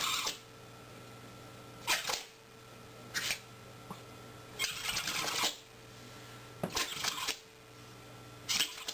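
A pet sneezing over and over, about six short sharp sneezes spaced a second or two apart, over a faint steady hum.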